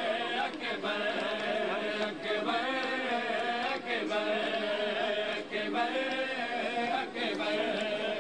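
Men chanting a nauha (Shia mourning lament) in chorus. Over it come paired slaps of hands on bare chests (matam), about every one and a half seconds.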